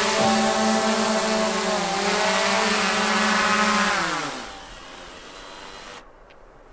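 Drone motors and propellers whining at a steady pitch, then spinning down, the pitch falling away about four seconds in, as the drone lands and stops.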